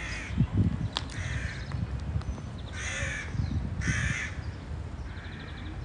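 Crows cawing, about five harsh caws spaced roughly a second apart, the two loudest near the middle, over a low rumble.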